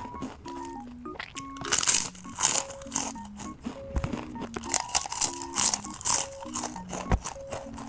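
Crunching potato chips, bite after bite, with a run of loud crunches about two seconds in and again around five to six seconds. Light background music with a simple melody plays underneath.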